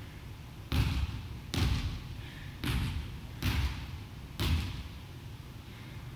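A volleyball bouncing on the hardwood gym floor: five hollow thuds roughly a second apart, each echoing briefly in the large hall.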